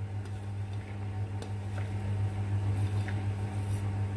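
Chopped vegetables being pushed by hand off a plate into a bowl of mashed potato: faint soft scraping and a few light taps, over a steady low hum.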